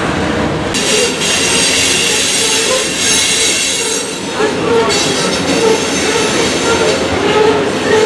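Loaded coal hopper cars rolling past with a steady rumble and high-pitched wheel squeal. The squeal starts about a second in, drops out briefly around four seconds, then comes back.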